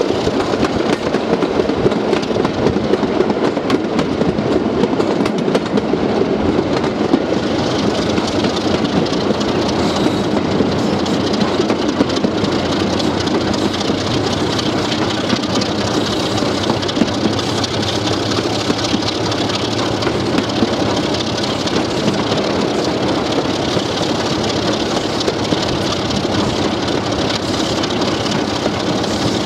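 BR Class 33 diesel-electric locomotive's Sulzer eight-cylinder engine running steadily as the locomotive moves along the line, mixed with wheel-on-rail noise, heard from an open cab window.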